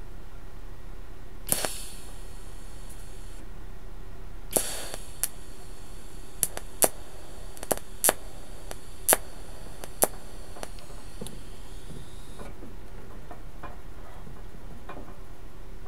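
TIG welding arc on thin car-body sheet steel. A sharp crack as the arc strikes about a second and a half in, then a high hiss for about two seconds. A second arc starts with a crack about four and a half seconds in and hisses for about eight seconds, with a string of sharp clicks through it. A faint steady hum sits underneath.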